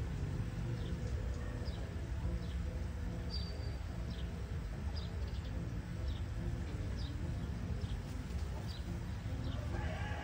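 A small bird chirping over and over, short high-pitched notes that dip downward, more than once a second, over a steady low background hum.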